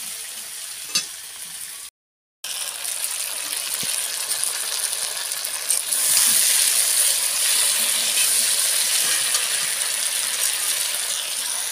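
Pigeon meat and masala sizzling in hot oil in a black kadhai as a metal spatula stirs and scrapes it, bhuna-frying the curry base. The sound breaks off briefly about two seconds in, and the sizzle grows louder about six seconds in.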